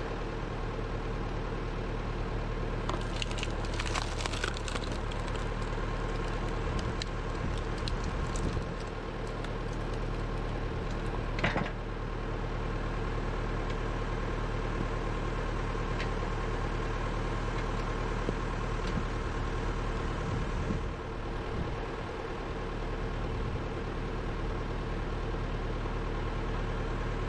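Massey Ferguson 165 tractor engine running steadily at low speed, driving the hydraulic log splitter, with a few sharp knocks and cracks of wood about three to five seconds in and again around eleven seconds in.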